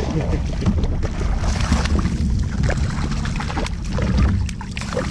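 Water splashing and sloshing at the side of a kayak as a hooked speckled trout is brought alongside, over a steady rumble of wind on the microphone, with scattered sharp knocks and clicks.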